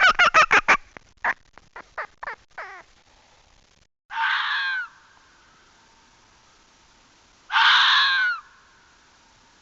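A rapid run of short, sharp animal calls that thins out over the first few seconds; then, after a clean break, a crow cawing: two long, harsh caws about three seconds apart.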